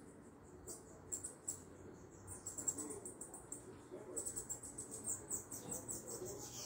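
A small caged songbird (a sibito) singing very high, rapid chirps and trills in quick runs, denser and fuller from about four seconds in.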